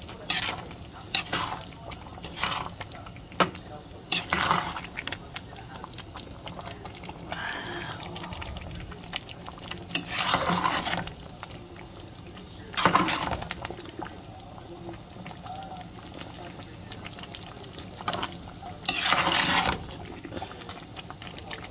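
A metal utensil clinking and scraping in a pot of spaghetti in creamy sauce as it is stirred, over a steady low bubbling. There are a few sharp clicks in the first few seconds, then longer scrapes about ten, thirteen and nineteen seconds in.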